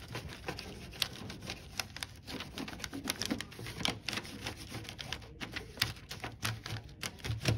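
White wax crayon rubbed on its side over thin copy paper laid on a foil tray: quick scratchy strokes with many irregular ticks and taps.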